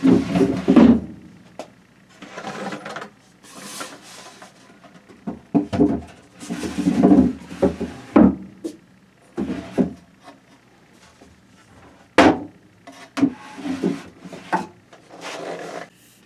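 Wooden drawers being slid into a cabinet's drawer openings: wood rubbing on wood in short, irregular strokes, with a sharp knock about twelve seconds in.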